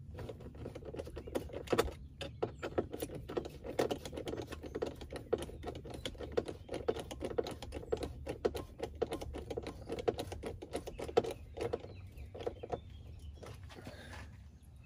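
A T25 Torx screwdriver driving a trim screw back into the Jeep's plastic interior trim through a nylon strap: a long, uneven run of quick small clicks and ticks that thins out near the end.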